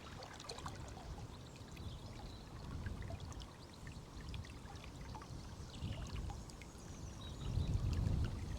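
River water running and splashing with many small ticks, under a low rumble of wind buffeting the microphone that gusts stronger near the end.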